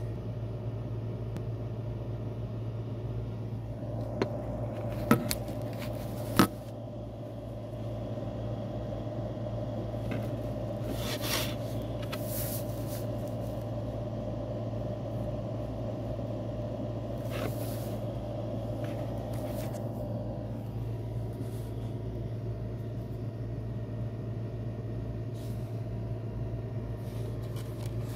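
A steady low mechanical hum. A higher steady tone joins it about four seconds in and stops around twenty seconds in. Three sharp knocks fall between about four and six seconds in, and there are a few short rustles later on.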